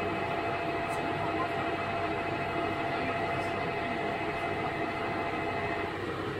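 Inside a KiHa 11 diesel railcar: its Cummins diesel engine running at a steady, unchanging note, with a steady whine above the hum.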